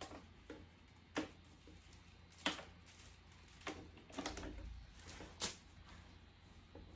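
Handling noise from a power cord and extension cord being dealt with: a handful of sharp plastic clicks and knocks spread a second or so apart, with some rustling in between.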